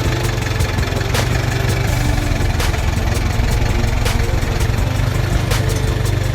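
Mitsubishi Pajero 4WD engine running steadily at low revs, with scattered short clicks and knocks over the top.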